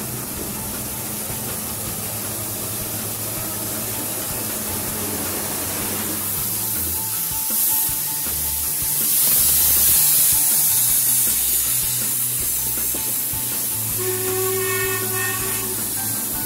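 Class B2b steam locomotive no. 213 venting steam with a steady hiss that swells loudest about nine to eleven seconds in, over background music.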